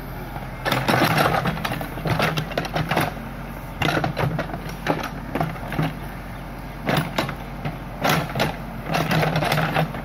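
Case backhoe loader's diesel engine running as the hydraulic arm digs and lifts the bucket, getting louder in repeated surges. Short knocks and scrapes come through several times as the bucket works the ditch bank.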